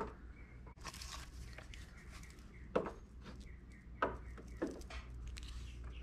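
Faint handling noise while working on a mini split's indoor unit: soft rustling with a few short clicks and knocks, over a faint low steady hum.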